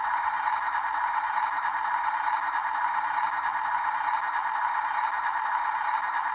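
Small electric motor and gears running steadily with a continuous rattle.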